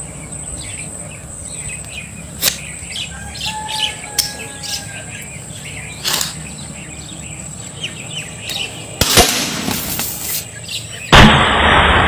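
Small birds chirping repeatedly, with a few sharp clicks scattered through. There is a brief rushing noise a little past the middle, and near the end a sudden, louder dense noise cuts in.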